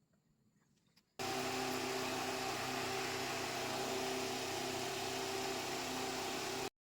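A machine running steadily: a broad rushing noise with a hum of several steady tones. It starts suddenly about a second in and cuts off abruptly near the end.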